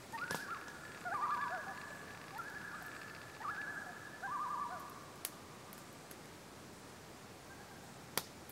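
Common loons calling across the lake: several long held wails and wavering tremolo calls overlap at two pitches for the first five seconds or so, then fade. A short sharp tick near the end.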